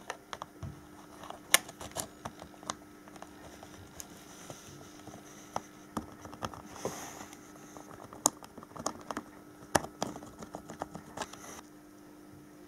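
Irregular small plastic clicks and taps as a cordless drill's forward/reverse switch, rebuilt with green 3D-pen PLA, is handled and fitted into the drill housing. The clicks stop near the end.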